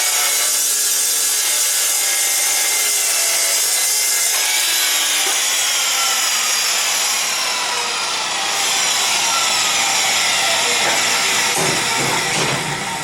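Power saw cutting through 3/4-inch round steel bar: a loud, steady high-pitched grinding whine whose pitch sinks slowly under the load, dying away near the end.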